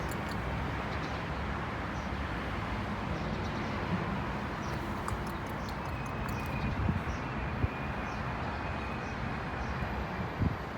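Steady low background rumble, like distant traffic or wind, with faint short bird chirps now and then.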